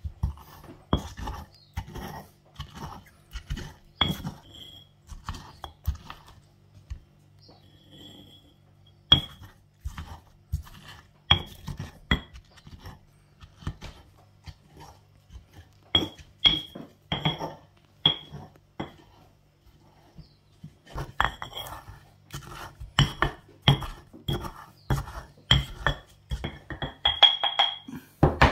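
Stone pestle pounding in a heavy stone mortar: irregular runs of sharp knocks, each with a short clinking ring, with pauses of a second or two between runs.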